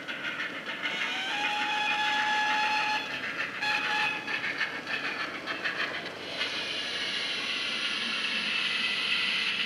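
Steam sound from a DCC sound decoder in a model GWR 14xx 0-4-2 tank locomotive, played through its small loudspeaker: chuffing and hissing as it runs. The whistle sounds one long blast about a second in, then a short one near four seconds, and the hiss grows louder and brighter past the six-second mark.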